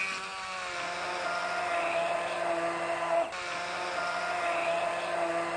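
Handheld immersion blender motor whirring as it purées cubed mango in a glass jug. It spins up at the start, drops out briefly a little past halfway, then spins up again and runs steadily.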